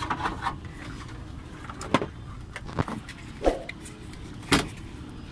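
Scattered sharp clicks and taps of small hand tools against a circuit board during solder work on a charging port, over a steady low hum.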